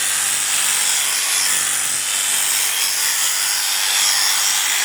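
Electric sheep shears running steadily, a continuous high buzzing hiss.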